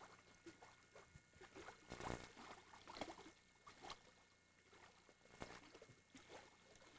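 Near silence: faint outdoor ambience with a few scattered soft clicks and knocks.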